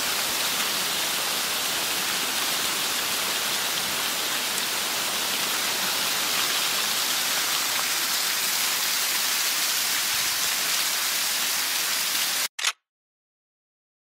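Waterfall rushing in a steady, even hiss of falling water that cuts off suddenly near the end.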